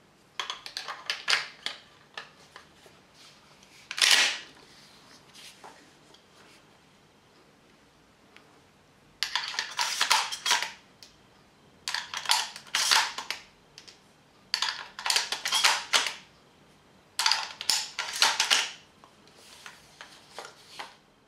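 Shells being pushed one after another into the magazine tube of a PPS M870 airsoft shotgun: clusters of quick metal-and-plastic clicks and clacks, with one louder clack about four seconds in and four click clusters in a row in the second half.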